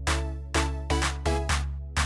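Instrumental background music with a steady beat: repeated struck notes, two to three a second, over a held bass.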